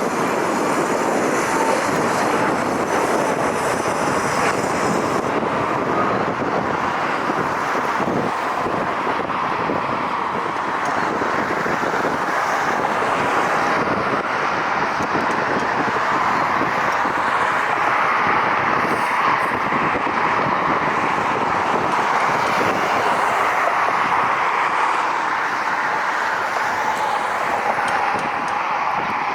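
Arriving jet airliner's engines making a steady rushing noise that holds at one level, with no clear rise or fall.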